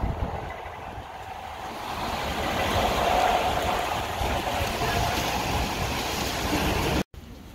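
Heavy rain hissing steadily while an electric passenger train approaches through it, the noise building over the first few seconds and then holding. The sound breaks off abruptly near the end.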